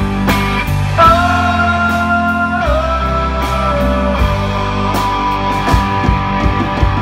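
Live rock band playing electric guitar and drums with a strong low end. A long held note comes in about a second in and bends down partway through.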